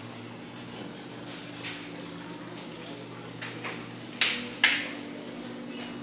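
Steady hiss and low hum of room noise, broken by a few short knocks, the two loudest close together about two-thirds of the way through.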